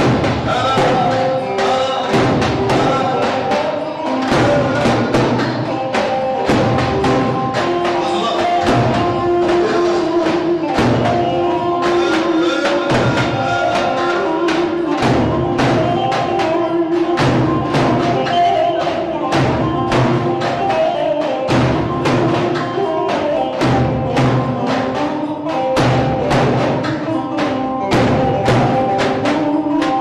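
Instrumental dance music: a sustained melody over a steady, driving drum beat.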